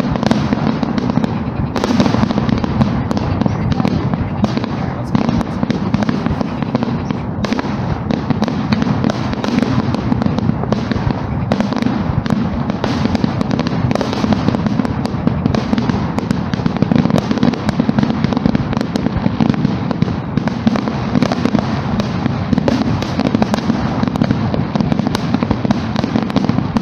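Fireworks display: aerial shells bursting and crackling in a dense, unbroken barrage, many reports in quick succession with no pause.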